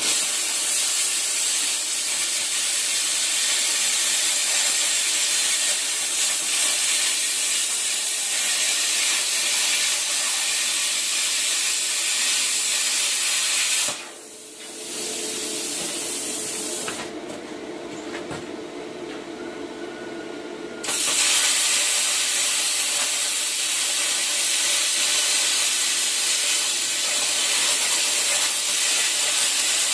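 Cut 50 air plasma cutter cutting sheet metal from an old drum: a loud, steady hiss of the arc and compressed air. About halfway it drops away to a quieter hiss for several seconds, then comes back at full strength.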